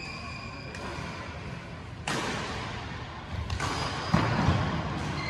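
Badminton doubles rally: rackets striking the shuttlecock and players' shoes moving on the court, with one sharp, loud hit a little after four seconds in.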